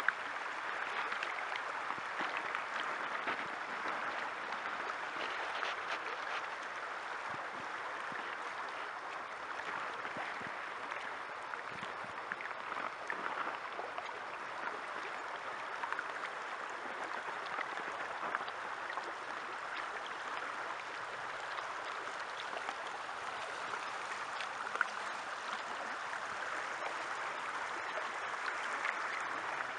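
Fast-flowing river running steadily: an even rush of moving water with small splashes.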